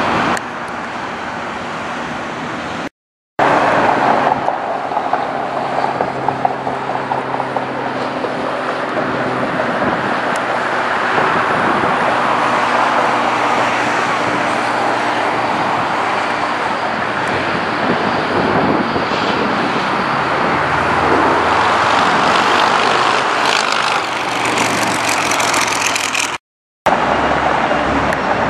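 Steady road vehicle and traffic noise, cutting out completely twice for a moment.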